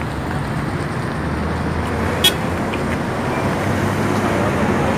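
Steady car and traffic rumble from vehicles moving through a busy car park, with a single sharp click a little over two seconds in.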